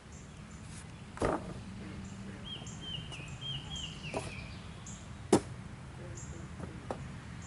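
Outdoor background with a bird giving a quick run of repeated chirps a few seconds in, and a few sharp knocks, the loudest a little after five seconds.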